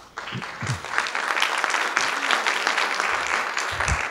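Audience applauding, swelling over the first second and thinning out near the end.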